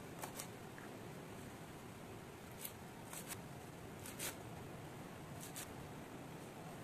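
Kitchen knife chopping celery on a wooden cutting board: a handful of short, sharp taps, mostly in quick pairs, over a faint steady hiss.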